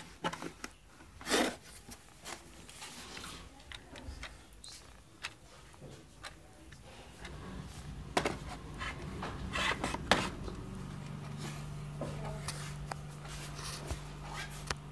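Plastic-framed wall clock being handled and hung on a wall: scattered light clicks and knocks, with a busier run of rubbing and knocking about halfway through. A faint steady hum sets in a few seconds before the end.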